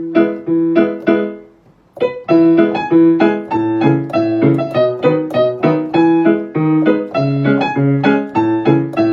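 Background piano music: a short phrase of struck notes, a brief pause, then a steady run of notes.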